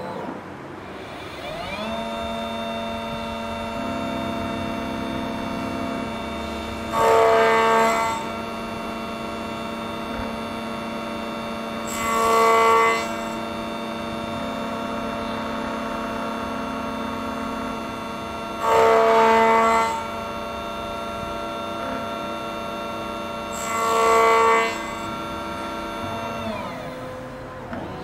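Key cutting machine's spindle motor spinning up, running with a steady whine, and cutting the FO21 Tibbe key blank in four louder passes about five seconds apart; the motor winds down near the end.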